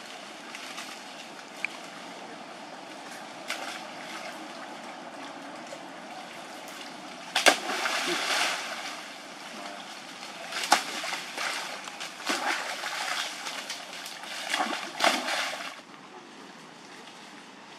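Macaques splashing into moat water: a sharp splash about seven seconds in, then bouts of splashing and sloshing as they swim, stopping about two seconds before the end.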